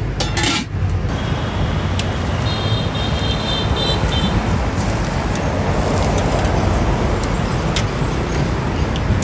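Steady street traffic noise with a low rumble, a brief high-pitched tone about two and a half seconds in, and a few sharp clicks.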